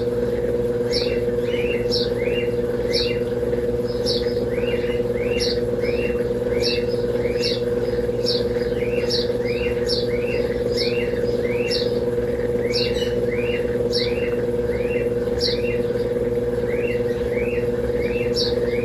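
Brastemp Double Wash 15 kg washing machine running its intermediate spin with the mini basket, a steady motor whine. Over it a small bird chirps over and over in quick runs of short, falling notes.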